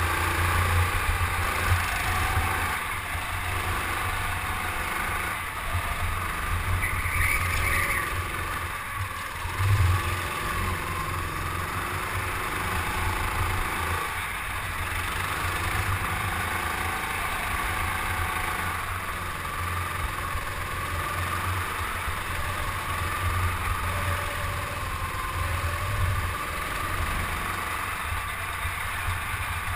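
Onboard sound of a racing go-kart's motor running at speed, a steady low rumble whose pitch shifts up and down through the lap. A brief high squeal comes about seven seconds in, and a thump about ten seconds in.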